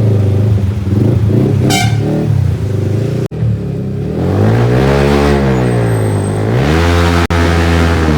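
Yamaha MT-15's single-cylinder engine running through a loud aftermarket exhaust. The revs rise and fall a couple of times in the middle, then hold steady.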